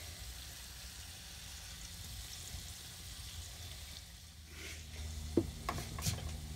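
Redfish fillets sizzling faintly in butter in a nonstick frying pan as they are turned. Near the end come a few sharp clicks and knocks from the spatula on the pan and counter, and a low steady hum comes in about two-thirds of the way through.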